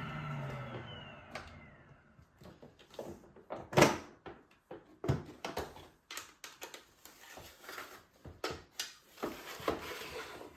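Bagless vacuum cleaner's motor winding down after being switched off, its whine falling and fading over about two seconds. It is followed by a string of irregular clicks and knocks from handling, the loudest about four seconds in.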